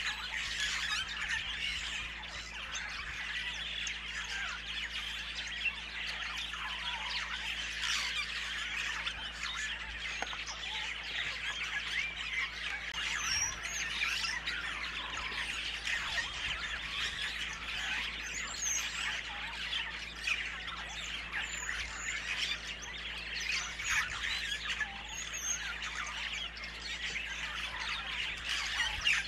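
Birds calling and chirping in a dense, continuous chorus, with squawks and higher chirps scattered through it.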